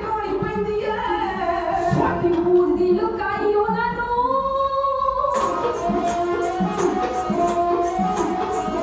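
Women's voices singing a Punjabi dhadi song in long, gliding held notes. About five seconds in the voices stop and the sarangi and dhadd drums play on with a steady beat.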